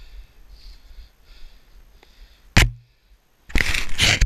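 Rubbing and scraping against a GoPro's housing as snow and clothing move over it: faint at first, then a single sharp knock, and from about three and a half seconds in a loud, noisy scraping.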